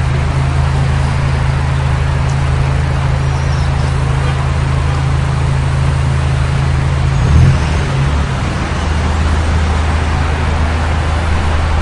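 City street traffic: a steady low hum under a constant hiss of passing vehicles, with a brief louder swell about seven seconds in.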